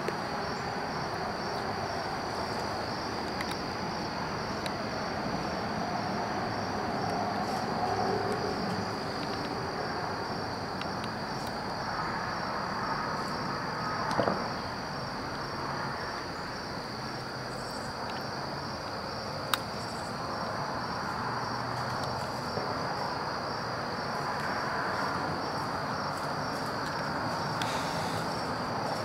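Insects, crickets by their sound, singing in a steady high drone with a faint regular pulse, over a soft even background hiss of the woods. Two sharp clicks stand out, one about halfway through and another a few seconds later.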